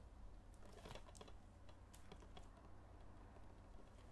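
Near silence with faint, scattered small clicks and taps of plastic DVD cases being handled.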